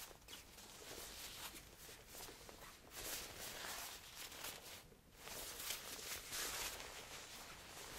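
Quilted puffer vest rustling and swishing as it is handled and taken off, in irregular swishes with a short lull about five seconds in.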